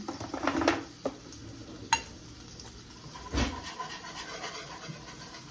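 Flour being whisked into melted butter in a pot to start a roux: a few clicks of the whisk and utensils against the pot and a thump about three and a half seconds in, over a faint sizzle.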